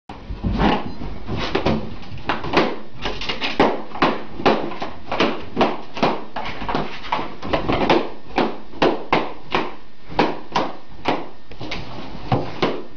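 Latex balloons popping one after another as a small dog bites into them, a rapid string of sharp pops about two or three a second.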